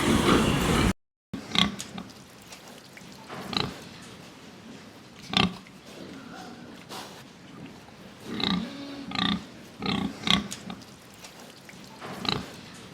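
Domestic pig grunting: a series of short grunts every second or two, with several close together about eight to ten seconds in.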